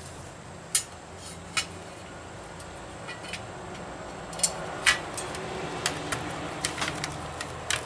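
Light metallic clicks and taps from a thin separator plate being set onto a transmission valve body and shifted into line by hand. A few scattered clicks come first, then a quicker run of them in the second half.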